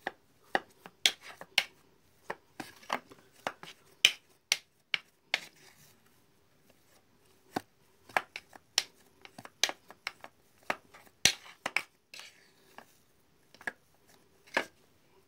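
Irregular sharp clicks and taps, about two a second, from a foil seasoning sachet being handled over an enamel plate as it is opened and its powder tapped out. A faint steady hum runs underneath.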